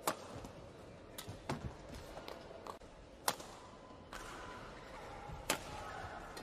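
Badminton rackets striking a shuttlecock: several sharp hits a second or two apart, the loudest at the start, about three seconds in and near the end, over a steady background hum.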